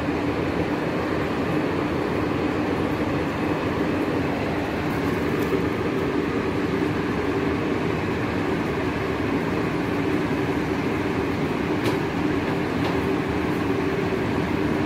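A steady mechanical drone with a low hum that holds level throughout, and a single faint click about twelve seconds in.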